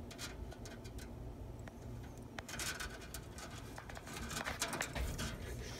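Light clicks and scratching from a hermit crab and hands moving against its cage, busiest in the second half, over a faint low hum.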